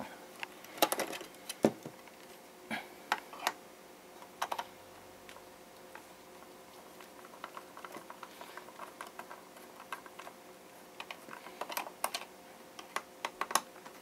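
Irregular plastic clicks and taps, in scattered clusters, as a battery alarm clock is taken apart by hand: its battery pulled out and its back casing handled and pried.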